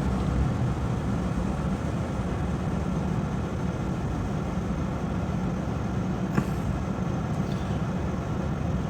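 Steady low rumble of background noise, with a single faint click about six and a half seconds in.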